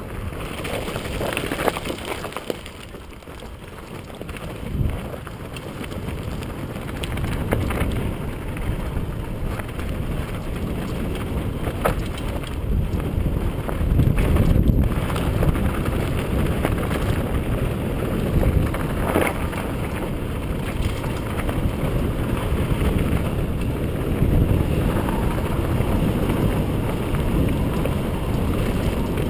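Wind buffeting the microphone over the rumble of mountain bike tyres rolling down a loose gravel and dirt trail, with scattered knocks and rattles as the bike hits rocks.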